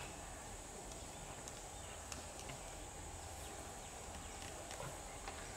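Faint outdoor ambience: a steady high hiss with a few faint, scattered ticks.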